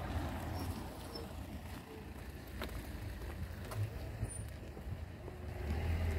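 Wind buffeting a phone's microphone during a walk, a low rumble that swells and fades, with a few faint clicks.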